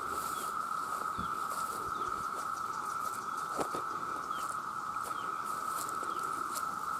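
Dense chorus of male cicadas calling for mates: one steady, unbroken high drone. Faint short chirps and a couple of soft clicks sound over it.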